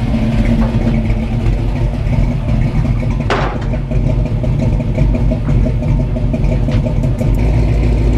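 An engine idling steadily, with a short hiss about three seconds in.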